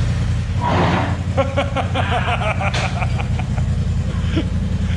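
Polaris RZR XP Turbo's turbocharged twin-cylinder engine idling steadily just after start-up.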